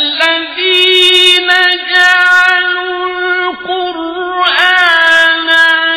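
A male reciter chanting the Quran in melodic tajweed style, holding long notes and ornamenting them with sliding turns. There is a brief dip about three and a half seconds in, and a new phrase begins about a second later.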